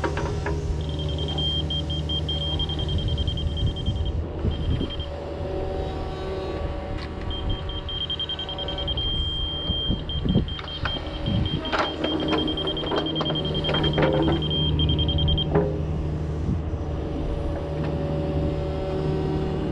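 Diesel engine of digging equipment running steadily. A high, rapidly pulsing beep sounds twice, the second time for about eight seconds, and several knocks come in the middle stretch.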